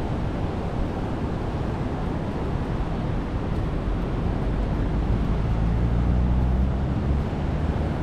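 Surf and wind rushing on the microphone. A low engine drone rises in about four seconds in and cuts off sharply about seven seconds in.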